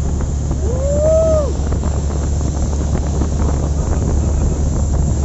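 Wind buffeting the microphone on a moving motorboat, over the steady low drone of the boat's engine. About a second in, a short call rises and then falls in pitch.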